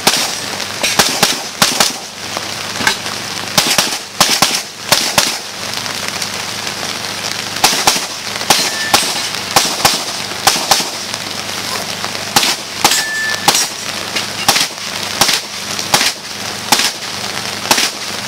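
Rapid pistol shots from an open-division competition pistol, mostly fired in quick pairs with short pauses between strings, and one longer pause about six seconds in. Steady rain hisses underneath.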